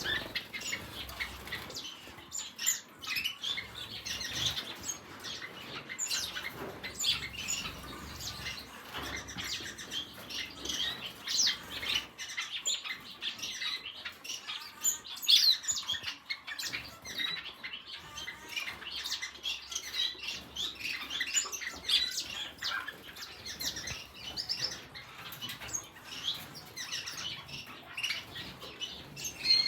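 Many small aviary birds, finches among them, chirping and peeping continuously over one another in a flock chorus.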